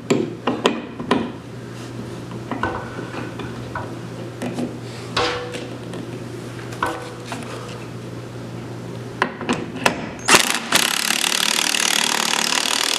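A steel barn-door rail bolt being fitted and turned by hand, with scattered small metal clicks and scrapes. About ten seconds in, a cordless drill starts and runs steadily, driving the bolt through the rail into the wooden header.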